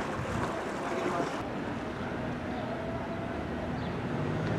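Wind and water noise at the waterside, then, after a cut about a second and a half in, the steady low drone of an approaching passenger ferry launch's engine, getting louder near the end.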